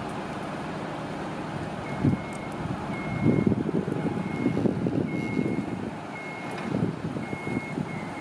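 A truck's reversing alarm beeping at one steady pitch, about one half-second beep a second, starting about two seconds in. Irregular low gusty rumbling runs underneath and makes the loudest peaks.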